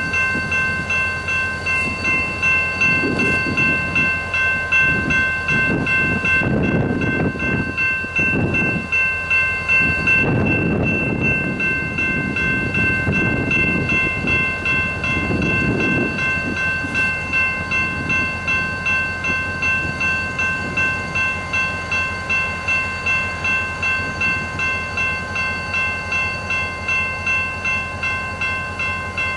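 Railroad grade-crossing bell ringing with an even, steady pulse while a diesel freight locomotive rumbles by, its engine loudest in the first half.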